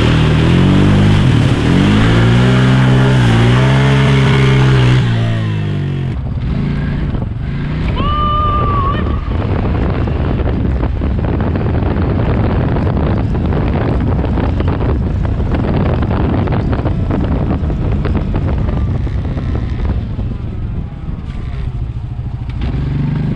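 Quad (ATV) engine revving hard through mud, its pitch rising and falling several times for the first five seconds or so. It then runs on steadily, with dense rattling and knocking as the machine bounces over the rough, muddy ground.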